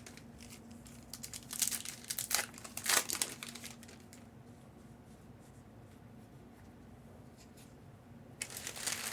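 Foil trading-card pack wrappers crinkling and tearing open in a few rustling bursts about a second and a half to three seconds in, quieter handling, then louder crinkling near the end.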